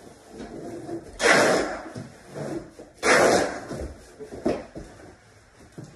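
Carpet pad and seam tape being handled on the floor. There are two loud noisy bursts about two seconds apart, each about half a second long, with quieter rustles and knocks between.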